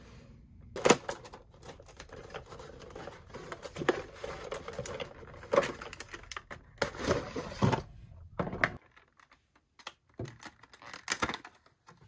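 Irregular sharp clicks, taps and crinkles of hands unboxing plastic toys and their packaging. The sounds are dense for most of the stretch and thin out to scattered clicks near the end.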